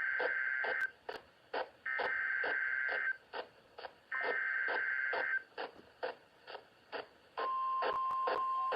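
Emergency Alert System SAME header: three bursts of buzzy digital data tones, each a little over a second long with about a second between them. About seven seconds in, the steady 1050 Hz National Weather Service warning alarm tone starts. A regular faint ticking, about three a second, runs underneath.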